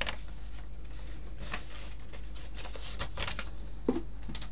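Paper and card being handled: scattered light rustles and soft taps, over a steady low hum.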